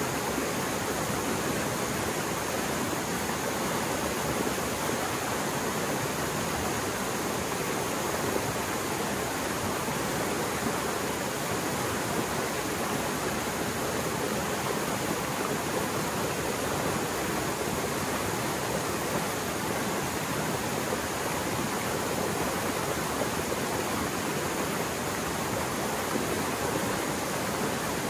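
Mountain stream swollen by heavy rain, flowing fast and roaring: a steady, even rush of water with no breaks or changes.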